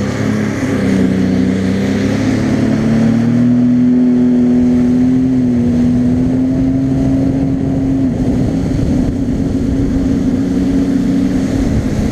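Jet ski engine running at speed, its pitch rising over the first few seconds, holding steady, then easing down a little about two-thirds through, with wind rushing over the microphone.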